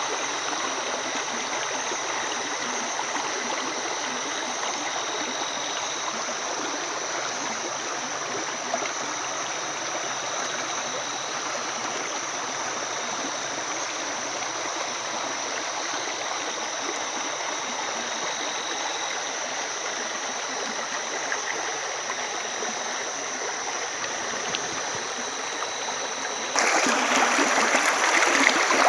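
Stream water running, a steady rushing and trickling that suddenly turns louder and fuller near the end.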